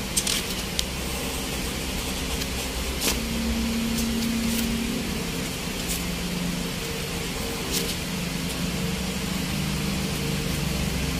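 Passport pages being thumbed through, with a few light paper flicks and clicks, over a steady mechanical hum.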